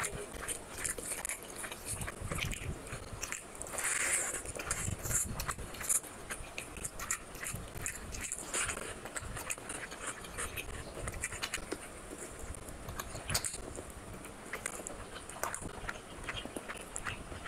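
Close-up eating sounds: wet chewing and lip-smacking of chicken curry and rice, made of many small, quick clicks and squelches.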